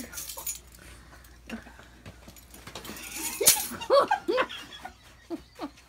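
A dog whining in several short rising-and-falling whines, after a single sharp knock about three and a half seconds in.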